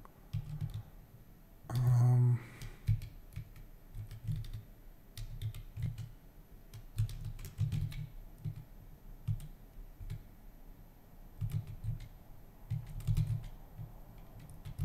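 Typing on a computer keyboard: irregular key clicks and taps, with a brief hum of a man's voice about two seconds in.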